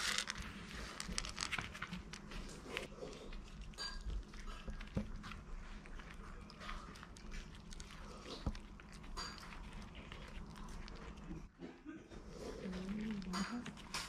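Maltese puppies eating soaked kibble from a plate: a run of irregular small crunches and clicks of chewing and of muzzles and food against the plate.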